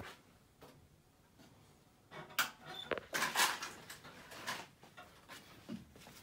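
Quiet room tone, then about two seconds in a run of knocks, rustles and a sharp click as objects are handled and moved about.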